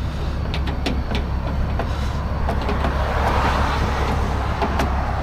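A steady low engine hum under scattered light clicks and metallic ticks, from a crank rod turning the pickup's underbody spare-tire winch to lower the spare. A rougher scraping hiss joins about three seconds in.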